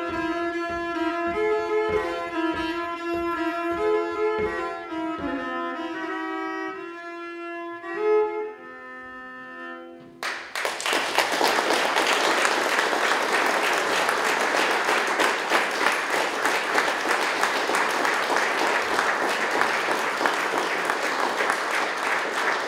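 A fiddle plays a Norwegian folk dance tune with sustained double-stopped notes over a steady low thump keeping the beat. It ends on a held note about ten seconds in, and then the audience applauds.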